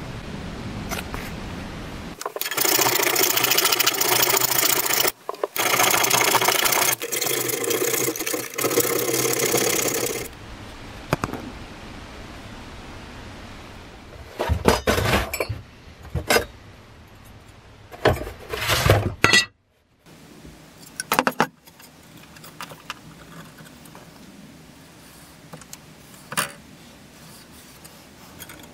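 A power tool runs for about eight seconds, breaking off once briefly. Several sharp knocks and scraping strokes of hand work on metal and wood follow.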